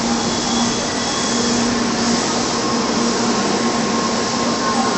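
N700 Shinkansen bullet train arriving at a platform, its cars passing close by with a steady rushing noise and a low hum.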